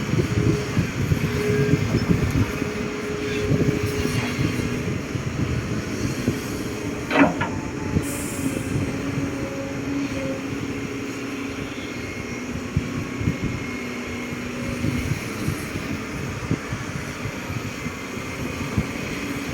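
Excavator driven by a three-phase electric motor in place of its diesel engine, running with a steady mechanical rattle and a faint hum, with one brief squeal about seven seconds in.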